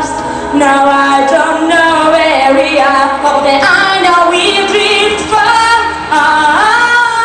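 Pop ballad with a female voice singing long held, wordless notes with vibrato over the backing music.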